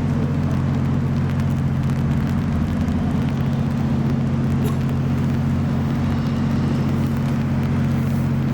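Steady low engine drone with a constant hum and no change in pitch or level.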